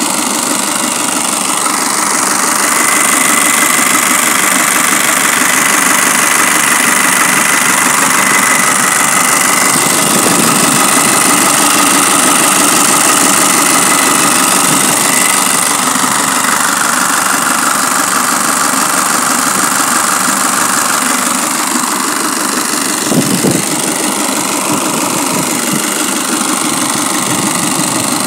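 Nissan YD25DDTi 2.5-litre four-cylinder turbodiesel running steadily at idle on a mechanical injection pump fitted in place of its original fuel system. One brief knock sounds a little past two-thirds of the way through.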